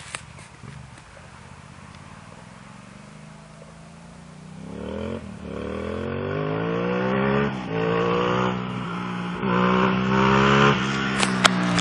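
2002 Suzuki SV650S V-twin engine breathing through a Dragon Ada aftermarket exhaust: it runs low and steady at first, then revs up about four times. Each time the pitch climbs and then drops sharply, and the engine grows louder as it goes. A single sharp crack comes near the end.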